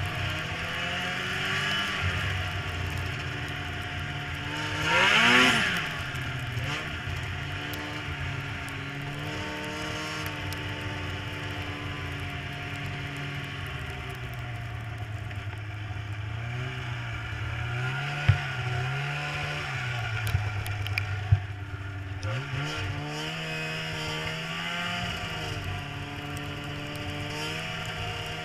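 Snowmobile engine running under way, its pitch rising and falling with the throttle. About five seconds in it surges louder, the pitch climbing and then dropping. A few sharp knocks come about two-thirds of the way through.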